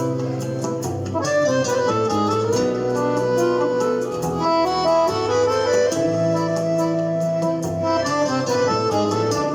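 Accordion playing a melody over a MIDI backing track with a bass line and a steady percussion beat.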